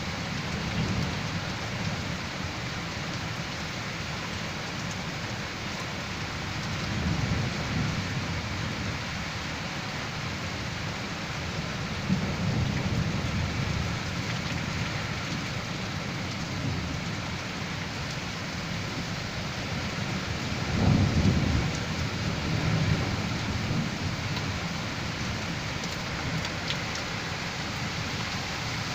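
Heavy rain pouring steadily in a severe thunderstorm, with several deep rumbling swells; the loudest comes about three-quarters of the way through.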